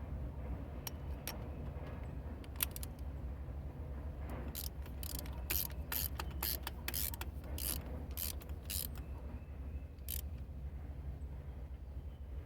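Hand ratchet wrench clicking in short back-and-forth strokes, working a spark plug in the engine. There are a few scattered clicks at first, then a steady run of about two clicks a second through the middle, stopping with a last click near the end.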